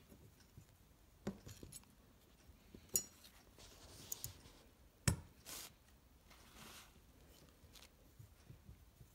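Scattered light metallic clicks and clinks of a long-stemmed Allen wrench turning small screws out of a steel transmission gear, the sharpest click about five seconds in.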